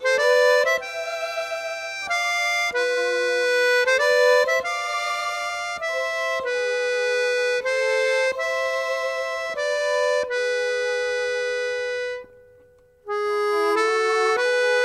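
Instrumental background music: held chords that change about every second, breaking off briefly about twelve seconds in before starting again.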